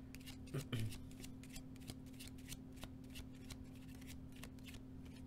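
A deck of tarot cards being shuffled by hand: many light, quick, irregular card flicks and clicks, faint, over a steady low hum.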